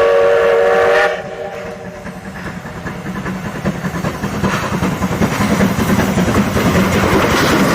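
Thomas the Tank Engine toy train sounding a steam-whistle hoot for about a second, then a continuous rapid chugging clatter that grows louder.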